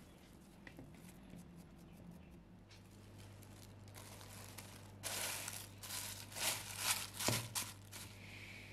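Thin plastic bag crinkling and rustling in a run of loud handling noises, starting about five seconds in as it is pressed down over dough in a bowl, with one sharp tap near the end.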